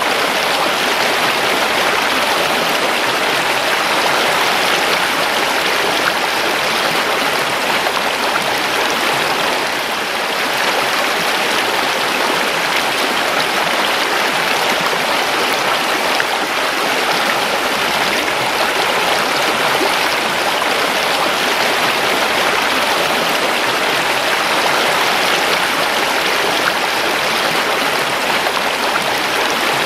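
Creek water rushing and burbling over stones, a steady, unbroken flow.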